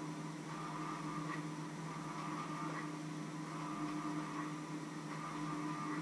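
Steady electrical hum over a constant hiss, with faint light ticks every second or two.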